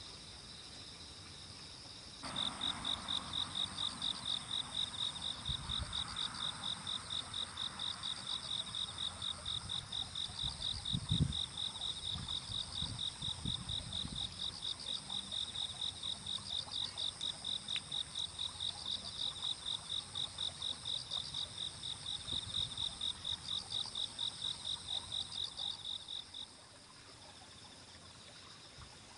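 Crickets chirping in a steady rhythm, about two or three high chirps a second, with a fainter, higher insect trill behind them. The chirping starts abruptly about two seconds in and stops a few seconds before the end, with a brief low knock about eleven seconds in.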